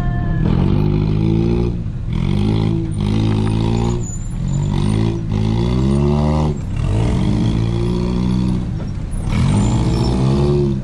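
Off-road buggy engine heard from the driver's seat, running under load up a steep dirt climb; its pitch rises repeatedly, dropping briefly several times as the throttle is let off and opened again.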